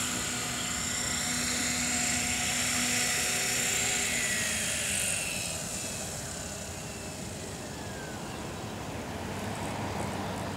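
Gaui X4 radio-controlled helicopter's motor and rotor whining. About five seconds in, the pitch falls and the sound fades as the landed helicopter's rotor spools down.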